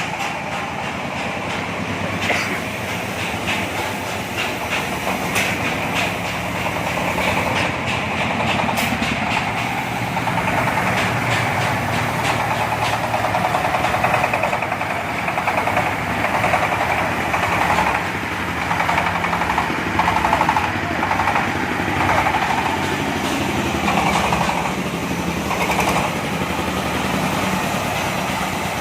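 Corn sheller for unhusked corn, driven by a 26 HP Jiangfa diesel engine, running under a shelling test: a steady engine drone with a dense, continuous rattle of clicks and knocks from the threshing works.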